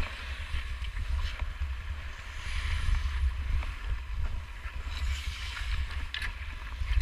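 Hockey skate blades gliding and carving on rink ice in strides that swell and fade every second or two, under a steady low rumble of wind buffeting the moving camera's microphone.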